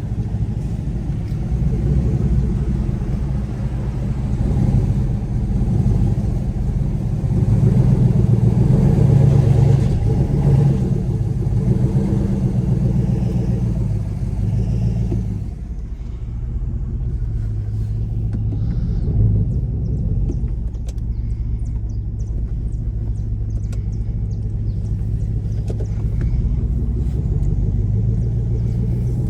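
Chevrolet Camaro SS's 6.2-litre V8 running through its exhaust with a deep rumble while being driven at low speed. It swells louder about a third of the way in, then eases to a steadier, lower note about halfway.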